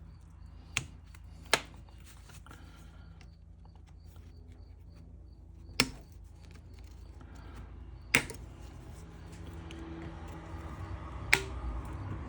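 Five sharp clicks and taps of small metal parts and tools being handled while working on an old fuel tank sending unit, spaced irregularly, the last near the end. A steady low hum runs underneath.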